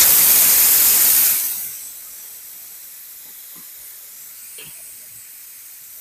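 A hot cooking pot hissing loudly for about a second and a half, starting suddenly, then settling to a faint steady hiss.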